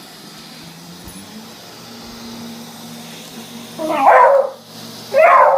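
A beagle barks twice at a robot vacuum cleaner, about four and five seconds in, the second bark longer and drawn out. A steady low hum from the running robot vacuum sits underneath.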